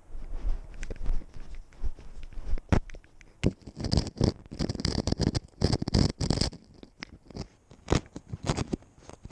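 Snow crunching and scraping right against a cat's collar-mounted GoPro as the cat pushes its head down into the snow: irregular crunches, getting denser and louder about halfway through.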